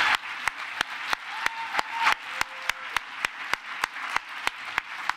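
Audience applauding, with sharp individual claps standing out at a steady pace of about three a second.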